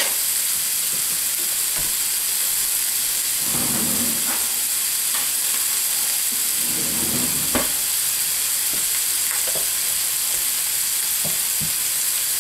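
Crumbled pork sausage sizzling as it browns in a cast iron skillet: a steady frying hiss with a few scattered pops of fat, the sharpest about seven and a half seconds in.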